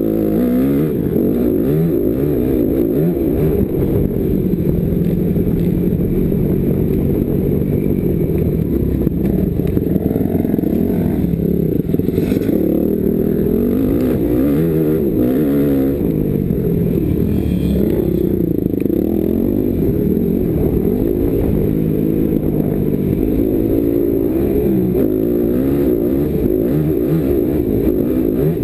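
Motocross dirt bike engine revving hard and easing off again and again as it is ridden around a dirt track, its pitch rising and falling. Heard from a helmet-mounted camera.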